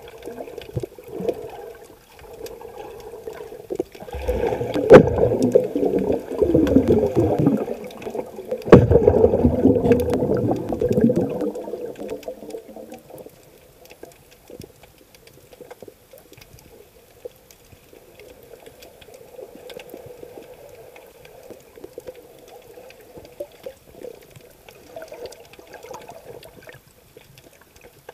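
Muffled water heard through an underwater camera. Two loud surges of rushing, gurgling water come in the first half, then a quieter wash with faint scattered clicks.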